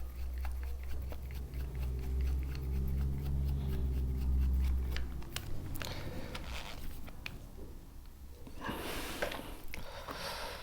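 Small cordless drill/driver motor running steadily with a low hum for about five seconds, then stopping. Light clicks of handling follow, with a short rustle near the end.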